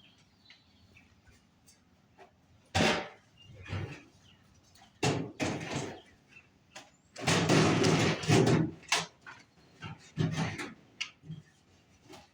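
Feed and buckets being handled: a string of knocks and rustling clatters, with a louder, longer stretch of rattling lasting about two seconds around seven seconds in, then a few short clicks.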